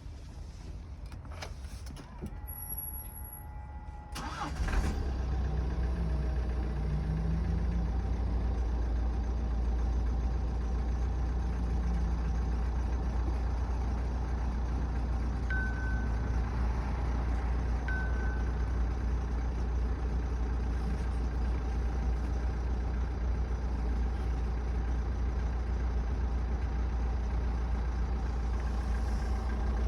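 Renault R9M 1.6 dCi four-cylinder diesel engine started about four and a half seconds in, then idling steadily. The owner is trying to trace an unexplained knock in this engine.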